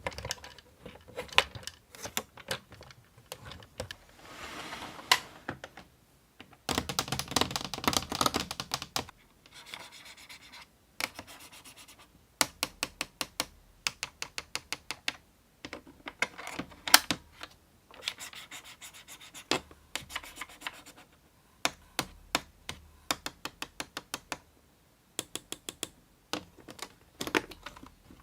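Toys and their packaging being handled: rapid trains of small, sharp clicks and scratching, broken by short pauses, with a denser stretch of scraping and rattling a few seconds in.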